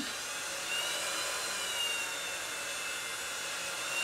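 Cordless drill on its low speed setting driving a screw into plywood: a steady motor whine over a hiss, its pitch sagging slightly and rising again near the end.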